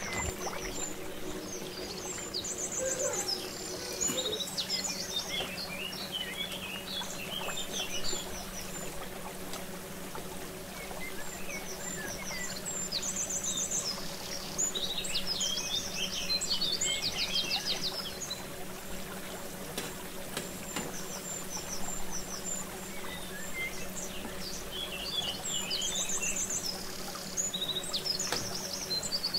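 Gram-flour pakoras deep-frying in a pan of hot oil, a steady sizzle. Small birds chirp and trill in quick high runs over it, coming and going, with a low steady hum underneath.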